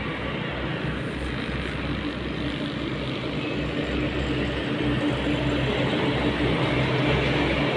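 Diesel engine of a car-carrier truck running with a steady low hum, growing a little louder toward the end.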